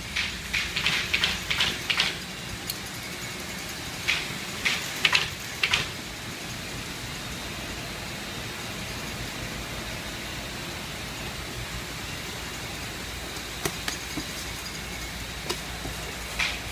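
Steady background hum and hiss, with clusters of short noises in the first six seconds and a few faint clicks near the end.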